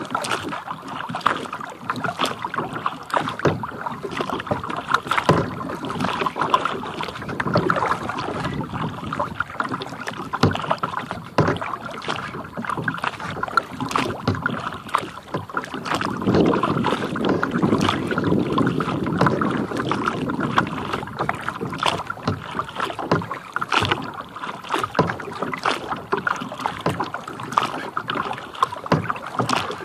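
Water lapping and splashing against the plastic hull of a kayak under way, with irregular small splashes and taps throughout and a fuller rush of water a little past the middle.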